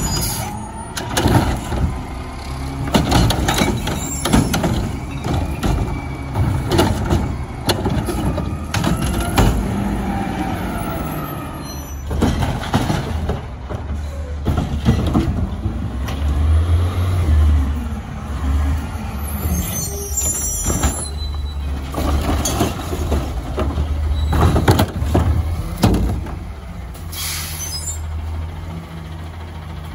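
Front-loader garbage truck diesel engine running and revving. The hydraulics whine, rising and falling in pitch as the front arm and cart lifter work, with many clanks and bangs from carts and the lifting can. Air brakes hiss sharply twice in the second half.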